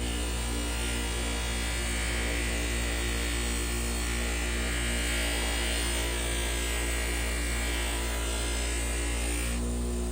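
Steady electric hum and buzz of a small motor, with a higher hissing noise over it that cuts off suddenly about half a second before the end.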